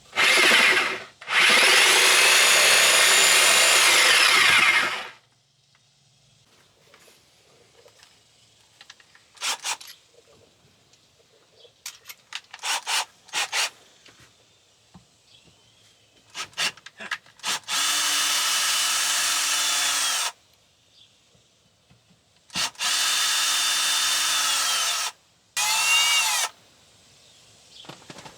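Cordless drill backing screws out of wood: several runs of two to three seconds, the motor's whine dropping away as each run stops, with clicks of handling in between.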